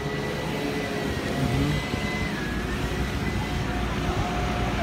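Steady outdoor background noise, a hum and hiss with a faint thin tone held through it, and no single event standing out.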